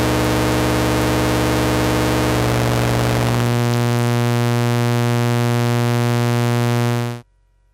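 Eurorack synthesizer drone from a Malekko Richter Oscillator II carrier being phase-modulated by a Radical Frequencies Precision Dual VCO, holding one low pitch. For the first few seconds it is harsh and noisy-buzzy; around three to four seconds in, as the phase modulation is turned down, it thins to a plain sawtooth tone, then cuts off suddenly near the end.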